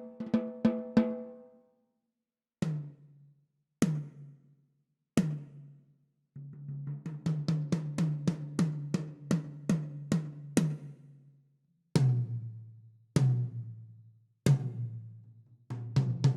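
Toms of a Janara Slim Witch drum kit struck one drum at a time, each stroke ringing out. A higher tom's last hits end about a second in. Then come single strokes and a quick run on a lower tom, then single strokes on a still lower tom, with a fast run starting near the end.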